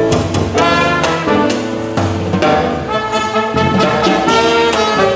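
Small jazz band playing live, trumpet and trombone carrying the tune over drums and piano.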